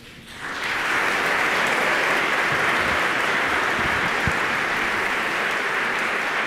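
Audience applauding, starting about half a second in and holding steady.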